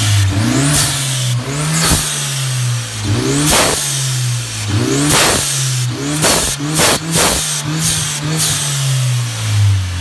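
Hyundai Genesis Coupe 2.0T's turbocharged four-cylinder blipped repeatedly with the hood up, the revs rising and falling; after most blips an aftermarket blow-off valve vents with a sharp whoosh, about eight times in all, showing the freshly cleaned valve working.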